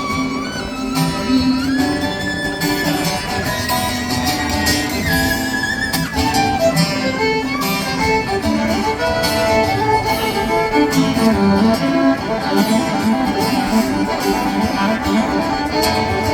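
Instrumental break in a country song, with a fiddle playing the lead over guitar accompaniment.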